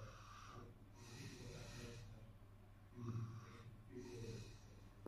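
A person breathing close to the microphone: four faint, hissy breaths a second or so apart.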